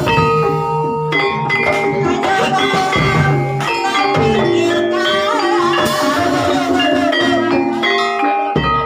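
Javanese gamelan music of the kind that accompanies an ebeg trance dance: mallet-struck keyed instruments playing a melody of ringing notes, with percussion.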